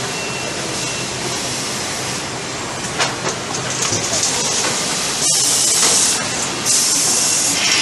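Altair 115 AL shrink-wrapping machine running, a steady mechanical hum and hiss, with a click about three seconds in and two loud hissing bursts of about a second each in the second half.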